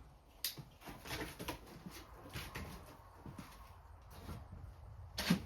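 Light handling noises from opening bolt packaging and handling the parts: scattered small clicks and rustles, with one sharper knock near the end.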